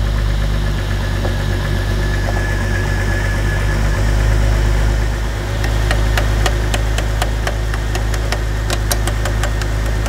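2003 Jeep Grand Cherokee's engine idling with a steady low hum. From about five and a half seconds in comes a run of sharp, irregular clicks as the engine computer's harness connector is wiggled and probed with a tool, hunting the loose connection behind its intermittent stall and no-communication fault.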